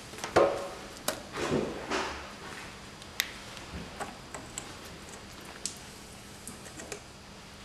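Hand work on an engine: a few sharp metal clicks and clinks from a worm-drive hose clip and tool, with short rubbing and scuffing as a rubber hose is worked off its fitting.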